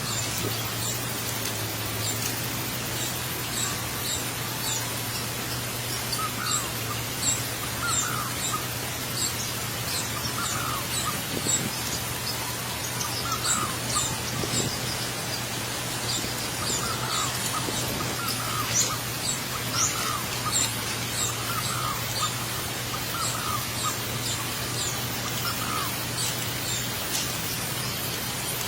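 Small birds chirping, with short high calls every second or so, over a steady hiss and a low steady hum.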